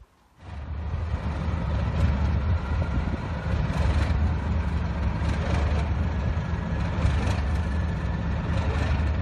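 British Rail Class 37 diesel-electric locomotive running at idle: a steady low engine note with a thin whine above it, coming in suddenly about half a second in.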